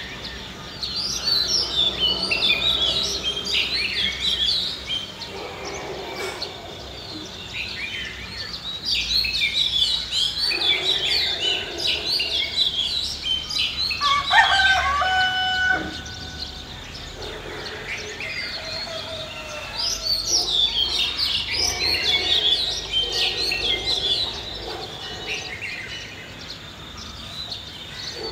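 Many small birds chirping in waves, with a rooster crowing once about halfway through, the loudest sound.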